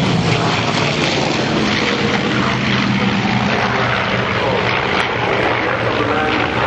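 Grumman F7F Tigercat's twin Pratt & Whitney R-2800 radial engines and propellers running hard as it climbs away just after take-off: a loud, steady drone.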